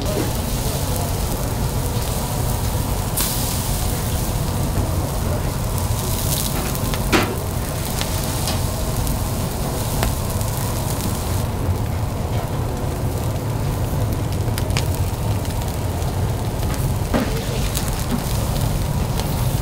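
Skewered eel fillets sizzling and crackling over a charcoal grill, over a steady low rumble. The hiss grows brighter and louder for several seconds in the first half, and a few sharp cracks stand out, one about seven seconds in and another near the end.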